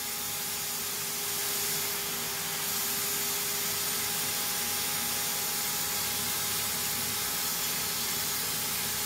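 Bosch low-pressure (HVLP) paint sprayer running: its turbine blows air steadily through the hose and gun, a constant hiss with a steady whine. The hiss grows louder about three seconds in.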